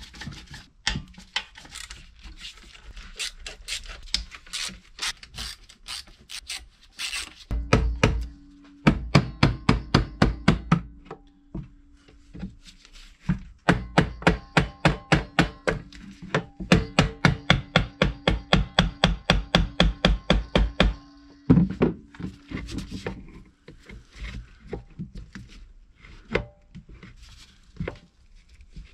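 Screws being backed out of a small portable generator's alternator end housing with a hand tool: two long runs of fast, even clicking, among knocks and clatter as metal parts are handled.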